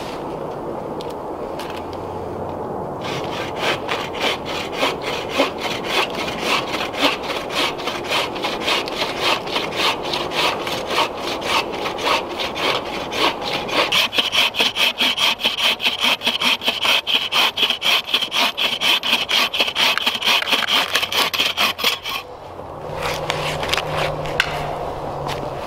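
Bucksaw cutting through a downed log with steady back-and-forth strokes. The strokes grow faster and louder about halfway through, then stop a few seconds before the end.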